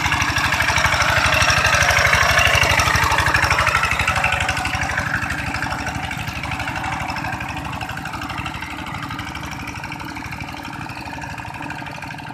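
Two-wheel hand tractor's single-cylinder diesel engine running steadily with rapid even firing pulses while its cage wheels plough through flooded paddy mud. It is loudest in the first few seconds, then fades gradually as the tractor moves away.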